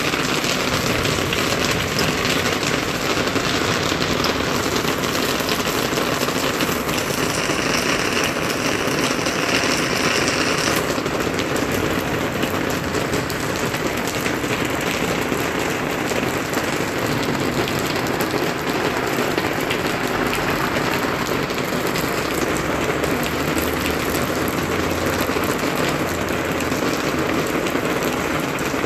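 Steady rain falling on surfaces, a dense even hiss, which grows brighter for a few seconds about seven seconds in. A low rumble joins in during the last third.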